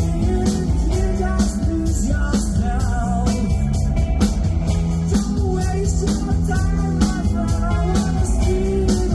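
Rock band playing live: drums keep a steady beat under bass and electric guitars, with wavering high lead lines.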